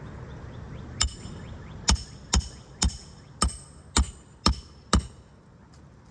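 Hammer driving roofing nails into asphalt shingles: eight sharp, ringing blows, about two a second, starting a second in.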